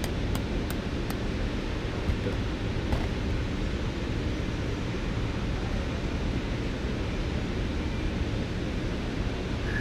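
Steady hiss and hum of a large factory workshop hall, with a few light metal taps in the first second as thin spoon steel held in pliers is struck to bend it.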